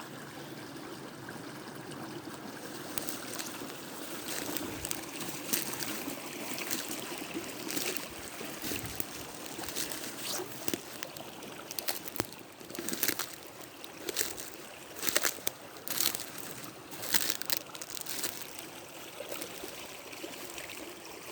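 Small stream trickling steadily over stones. From a few seconds in, a run of short crackles and rustles, roughly one a second and louder than the water, sits over it.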